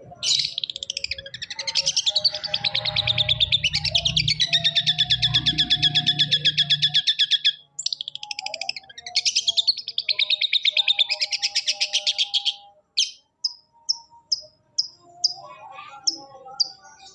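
Long-tailed shrike (cendet) singing two long, rapid chattering trills, then a string of short sharp falling notes about two a second. A low hum underlies the first half and stops about halfway through.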